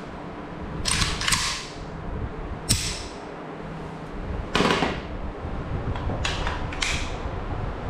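AK-47-pattern rifle being handled: about six sharp metallic clacks and clicks of its parts being worked and snapped into place, some in quick pairs.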